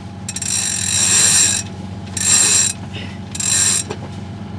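Yacht winch being cranked to hoist the reefed mainsail, its pawls clicking rapidly in three spells. The inboard engine idles in neutral underneath as a steady low hum.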